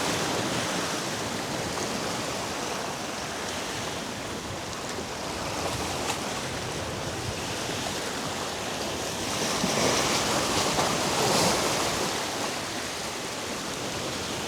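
Ocean surf washing against a rock jetty, a steady wash that swells louder about ten seconds in.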